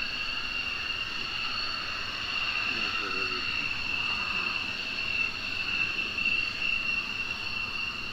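Two-seat F-16 fighter's turbofan engine whining steadily at taxi power, a high two-tone whine over a soft rush as the jet rolls slowly along the taxiway.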